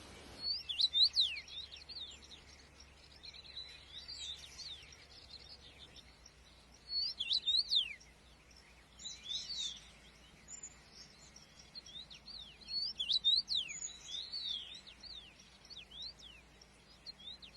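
Small birds chirping in scattered bursts of quick, high, downward-sweeping chirps, over a faint steady background hiss.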